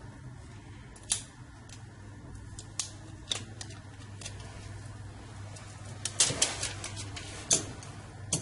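Rubber hand roller rolled and pressed over OCA adhesive film on a smartphone touch glass, with scattered sharp clicks and taps, bunched together about six to seven and a half seconds in, over a steady low hum.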